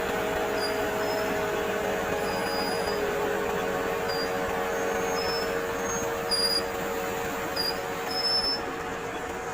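Heavy road-works machinery running steadily: a continuous engine and machine drone with a few held tones.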